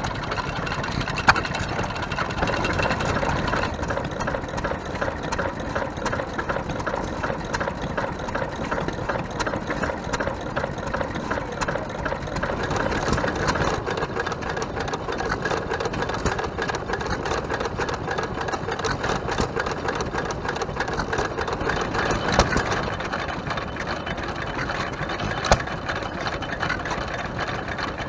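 Vintage stationary engines, among them a Bradford and a Hercules, running steadily with a quick, even beat of firing strokes and valve clicks. A few louder single knocks stand out, one about a second in and two near the end.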